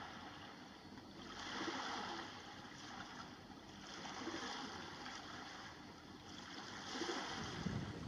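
Surf washing onto a sandy beach, the hiss of the waves swelling and fading about every two to three seconds. Near the end, wind buffets the microphone with a low rumble.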